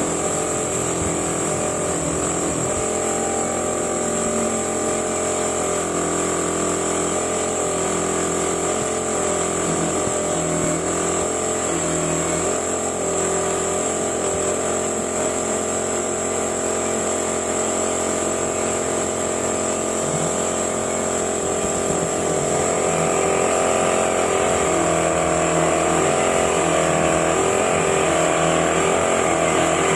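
Compressed-air paint spray gun hissing steadily, with an air compressor running, as yellow paint is sprayed. The sound gets a little louder and brighter about two-thirds of the way through.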